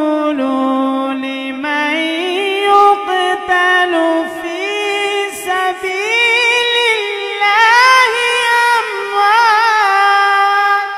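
A man reciting the Quran in the melodic, drawn-out tajweed style into a handheld microphone. The words are stretched into long held notes that step up in pitch about two seconds in, with quick wavering trills in the second half.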